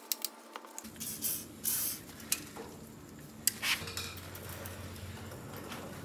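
Workshop handling noises around a VW transmission: a few short hisses and light metallic clicks and clinks as it is wiped with a rag and shifted on its dolly, over a low steady hum.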